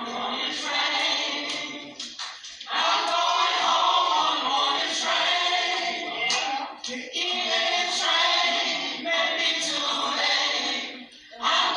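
A choir singing, its phrases broken by a short pause about every four to five seconds.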